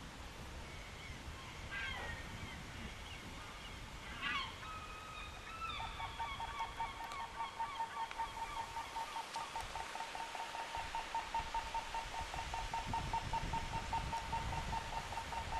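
A few bird calls, then from about six seconds in a rapid, even electronic ticking-beep at one pitch, several beeps a second, like a pedestrian crossing signal sounding for walk.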